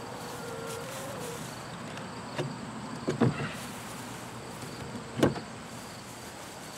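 A wooden access panel on the side of a chicken coop being pulled loose and lifted off, giving a few sharp knocks and scrapes, the loudest about five seconds in. A steady faint insect buzz runs underneath.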